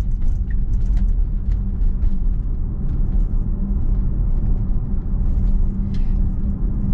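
Road and tyre noise inside a Tesla's cabin as the electric car picks up speed to about 33 mph: a steady low rumble with a faint, even hum under it.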